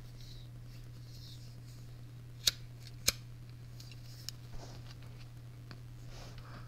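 Hand tools clicking against metal on the tractor's hydraulic pump fittings: two sharp clicks about half a second apart near the middle, then a few faint ticks, over a steady low hum.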